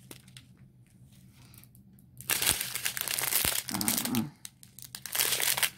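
Small clear plastic bags of diamond-painting resin drills crinkling as they are handled, starting about two seconds in and going on until near the end.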